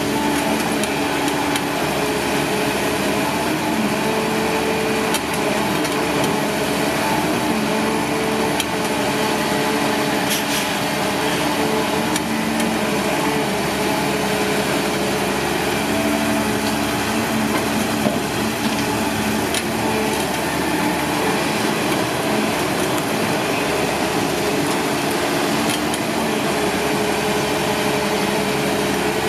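Caterpillar 320D2 excavator working: its engine and hydraulics run steadily with a low hum that swells and fades, and a few sharp knocks or cracks are heard along the way.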